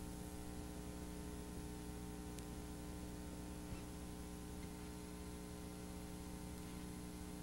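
Steady electrical hum with a faint hiss, the background noise of an old home videotape recording, with no other sound.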